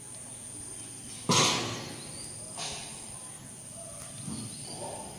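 A sudden loud bang about a second in, fading over half a second, then a weaker knock, over a steady high-pitched insect drone.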